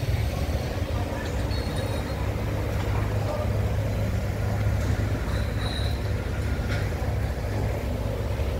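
Large vehicle's engine running steadily at idle, a continuous low rumble, with faint street noise over it.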